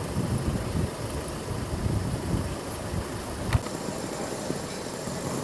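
Low, rumbling outdoor noise of motor traffic, with a sharp click about three and a half seconds in, after which the rumble thins out.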